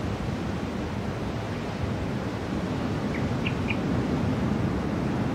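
Steady wash of surf from the sea, mixed with wind on the microphone, a low even rush with no breaks. A few short, faint high chirps sound about three seconds in.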